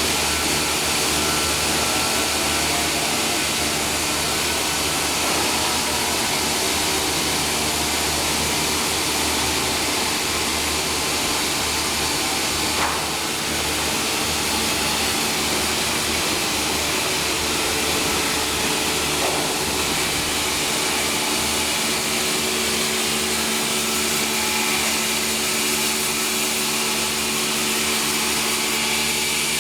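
Sawmill machinery running: a loud, steady mechanical noise over a constant motor hum, with a couple of faint clicks partway through.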